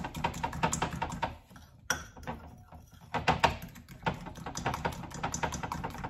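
A fork beating orange juice and icing sugar into a glaze in a glass bowl, clicking rapidly against the glass. The clicking eases off about a second and a half in and picks up again about three seconds in.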